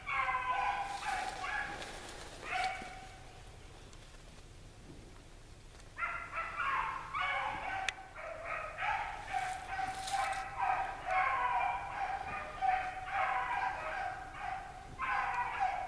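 A pack of bluetick hounds bays in full cry, several voices overlapping, as they run a swamp rabbit's track. The baying breaks off for a few seconds after the opening burst, then picks up again and runs steadily on.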